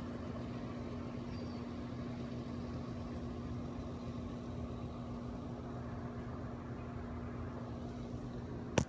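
Steady mechanical hum with a constant low tone over a low rumble, typical of a running electric motor. A single sharp click near the end.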